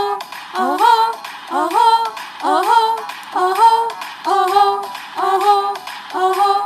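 Hindi pop song playing loudly, its female voice repeating a short rising 'oh-ho' vocal hook about once a second.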